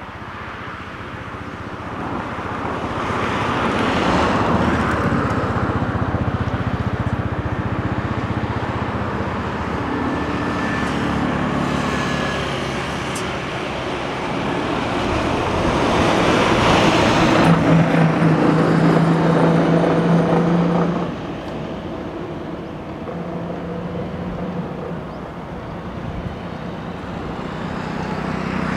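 Cessna Grand Caravan single-engine turboprop on approach and landing, its engine and propeller drone growing louder as it comes in. The loudest stretch, a steady low hum, falls away suddenly about three-quarters of the way through.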